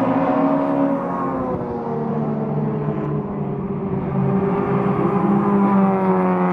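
Two cars passing one after the other at speed under open throttle. Each engine note falls in pitch as the car goes by, about a second in and again near the end.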